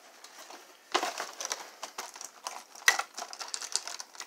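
Clear plastic toy packaging crinkling and crackling in quick irregular clicks as a knife cuts the tape holding the parts into the box, starting about a second in.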